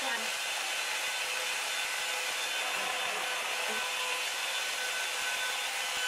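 Revlon One-Step Hair Dryer and Volumizer hot air brush running steadily on its low setting: an even rush of air with a faint motor whine.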